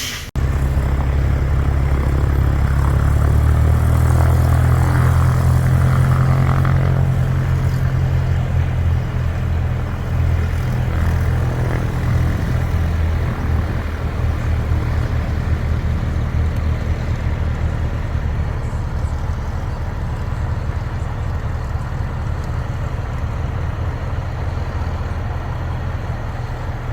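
A heavy diesel engine running steadily with a deep hum, louder for several seconds near the start and then settling to an even level.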